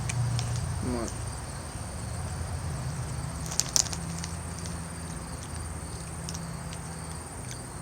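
Background noise: a steady high-pitched trill and a low hum, with a few sharp crackles about three and a half seconds in.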